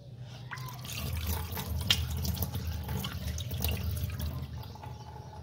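Kitchen tap running onto fresh paneer curds in a plastic strainer, the water splashing through into the sink as the curds are rinsed. The flow picks up about a second in and eases off near the end.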